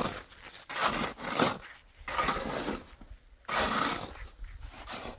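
Shovel scraping and digging into a pile of sand and gravel, about four strokes a second and a half apart.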